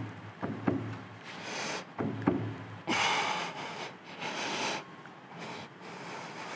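Light knocks and clicks of cast-iron lathe parts as the compound base is worked loose from the cross slide, followed by several short breathy puffs.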